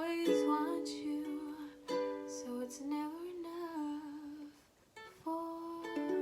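Ukulele strummed in slow closing chords, struck four times and left to ring, with a soft wordless vocal note wavering over it in the middle; a brief pause comes just before the last two chords.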